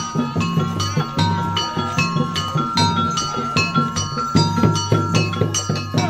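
Traditional South Kalimantan music for the Tuping Burung mask dance: a quick, even run of ringing struck metal notes over a low drum beat.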